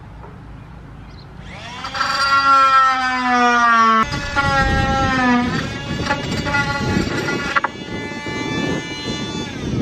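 Electric drill running under load into wood: a high motor whine in three runs, the first two sagging in pitch as the bit or screw bites.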